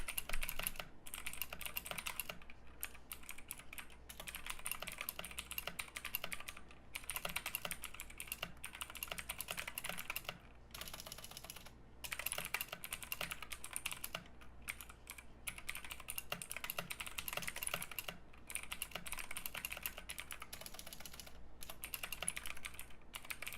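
Typing on a 60% mechanical keyboard with clicky Outemu Blue switches: quick runs of sharp key clicks with short pauses between them. Picked up by a clip-on mic about a foot from the keyboard.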